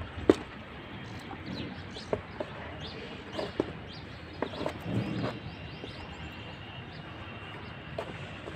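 Birds chirping over a steady background hiss, with a few sharp clicks and knocks, the loudest just after the start.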